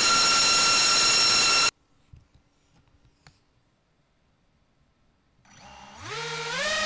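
Electric motors spinning the RC car's ducted propellers, running at a loud steady high whine that stops abruptly about a second and a half in. After a few seconds of near silence with faint clicks, the propellers spin up again, the whine climbing in pitch in steps.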